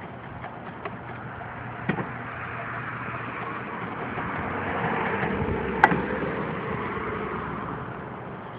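A road vehicle passing by, its noise swelling to a peak about five to six seconds in and then fading. A single sharp click comes near the loudest point, and a fainter one about two seconds in.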